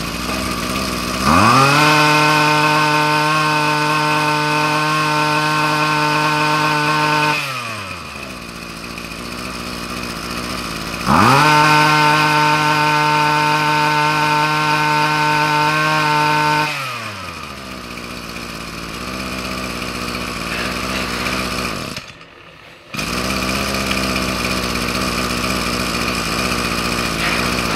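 Hitachi CG24ECP(S) 24cc two-stroke brushcutter engine running. Its throttle is opened twice, each time revving up to a high, steady speed for about six seconds before dropping back to idle. The sound cuts out briefly near the end, then the idle continues.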